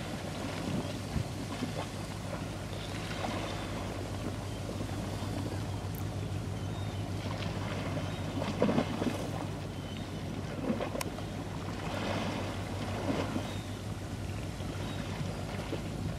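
Wind gusting on the microphone over choppy river water, a steady rushing noise that swells in gusts, with a constant low hum underneath and two faint clicks.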